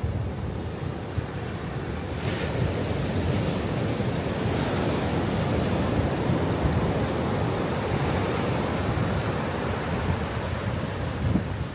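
Ocean surf breaking and washing up a sandy beach, a steady rushing hiss that swells about two seconds in, with wind rumbling on the microphone.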